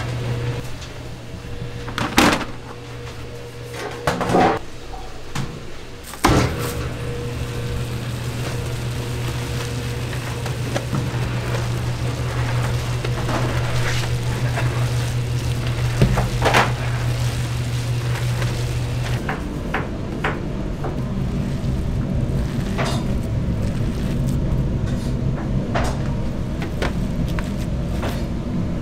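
Food mixing machine running with a steady low hum as its paddle churns thick dumpling filling, with a few sharp knocks. About two-thirds of the way through, the hum changes to a different, slightly higher steady drone.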